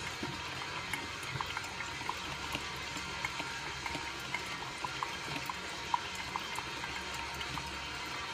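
Automatic drip coffee maker brewing into its glass carafe: a steady hiss with small irregular pops and drips scattered through it.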